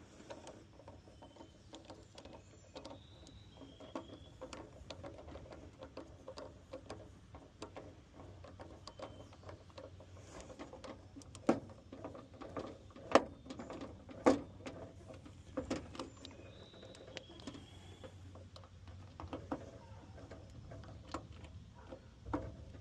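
Irregular small clicks and taps of hand tools and metal electrical parts as a 20 amp receptacle is worked into a metal outlet box, with a few sharper knocks around the middle.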